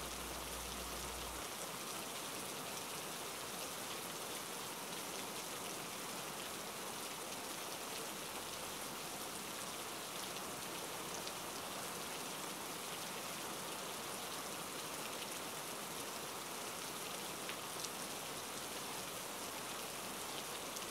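Steady rain falling on a vehicle's windshield, heard from inside the cab.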